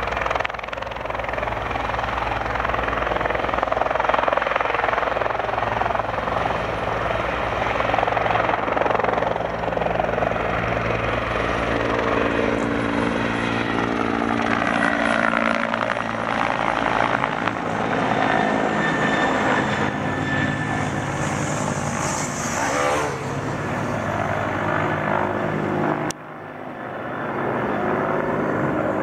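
Bell 412 helicopter flying, with a steady drone of rotor and turbine. Its tones slide lower in pitch around the middle. Near the end the sound drops off abruptly and swells back up over a couple of seconds.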